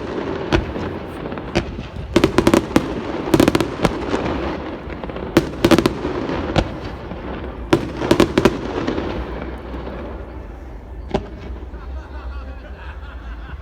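Aerial fireworks bursting: volleys of sharp bangs with crackle come every couple of seconds, then thin out to one more bang near the end.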